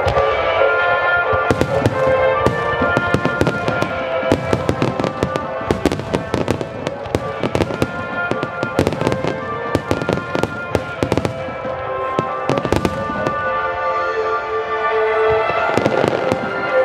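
Fireworks bursting and crackling in rapid succession, many sharp bangs a second, over orchestral music with sustained chords that plays along with the display.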